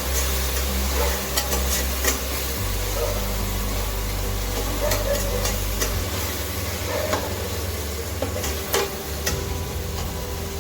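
Ginger-garlic paste frying in oil with onion and tomato masala in a metal cooker, sizzling steadily while a spatula stirs it, scraping and clicking against the pot now and then.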